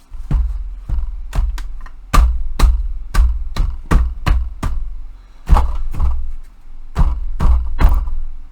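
A fast, irregular series of sharp knocks with heavy thuds, roughly two a second: the wooden pieces of a hobby tool storage rack being tapped down to seat them fully in their slots.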